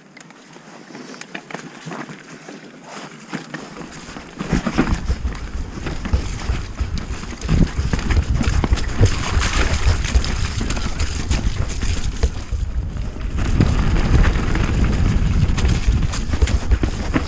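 Mountain bike riding fast down a muddy, rooty trail: wind buffeting the microphone, with tyres and frame clattering and knocking over roots and ruts. It gets much louder about four seconds in as the speed picks up.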